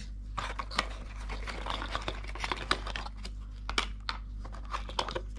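Clear plastic packaging crinkling and crackling as it is handled and worked out of a small cardboard box, with many irregular sharp clicks, over a low steady hum.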